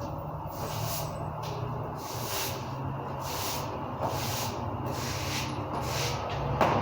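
Broom sweeping a concrete floor in regular strokes, about two a second, over a low steady hum, with a sharp knock near the end.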